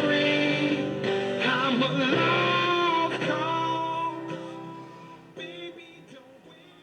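A song with male singing and guitar playing through the small speaker of a 1945 Westinghouse H-126 "Little Jewel" tube AM radio. The music fades down over the last two or three seconds.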